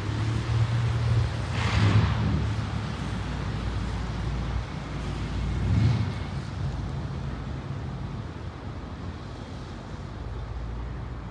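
Low, steady rumble of a distant diesel freight locomotive, KCSM 4500, approaching at the head of its train. Gusts of wind buffet the microphone, loudest about two seconds in and again near six seconds.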